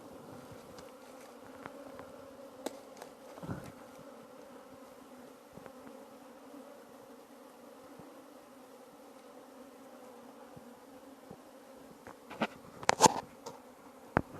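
Honeybees buzzing in a steady, even hum around the hive. A few sharp clicks or knocks come near the end.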